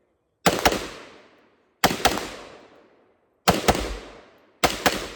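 Gunshots fired as double-taps: four pairs of shots about a second and a half apart, each pair trailing off in a long echo.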